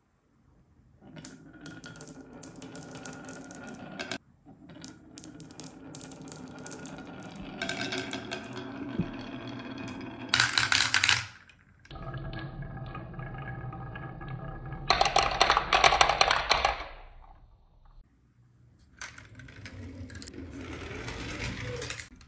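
Marbles rolling down the wavy grooves of a wooden marble slope, a steady rattling rumble, in several runs with short breaks between. Louder bursts of clattering come about ten seconds in and again around fifteen to seventeen seconds in, as marbles drop off the end into a toy pickup truck's bed.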